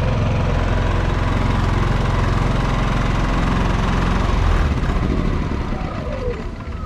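GENMAX GM14000i-HSB twin-engine inverter generator running steadily. About four and a half seconds in, it slows and winds down, consistent with being shut off by its remote.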